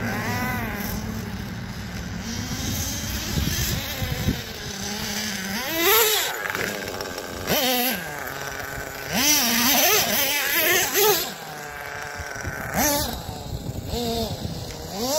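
Nitro engine of a Red Cat Earthquake 3.5 RC truck, revving hard in repeated bursts that rise and fall in pitch as the throttle is worked, between stretches of lower running.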